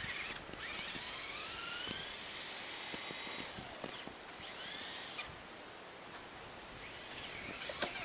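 Traxxas Rustler RC truck's brushed electric motor whining as it is throttled on and off, its pitch rising and falling. One long spell runs from about half a second in to about three and a half seconds, a short one comes near five seconds, and another near the end.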